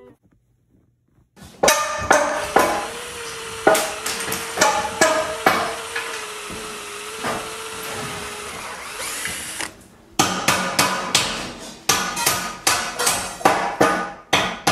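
Hammering and power-tool work sound effects. About a second and a half in comes a dense spell of clattering knocks over a steady whine. After a short break near ten seconds, a regular run of hammer blows follows at about three a second.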